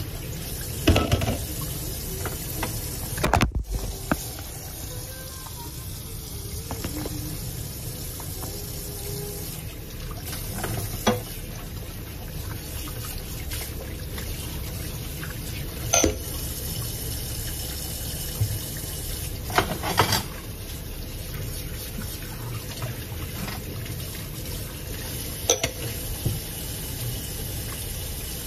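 Kitchen tap running steadily into a sink while dishes are washed, with several short clinks and knocks of dishes and pots against each other and the sink.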